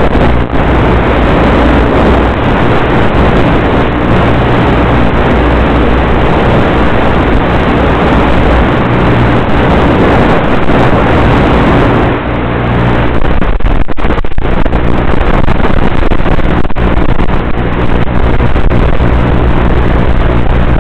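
Motor and propeller of a radio-controlled model F-117 running steadily, heard from its onboard camera with airflow rushing over the microphone. About twelve seconds in the rush briefly drops, then the motor's hum comes through more clearly and a little louder.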